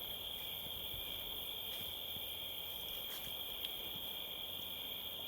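Crickets chirping in a steady, continuous high-pitched chorus, with a few faint clicks.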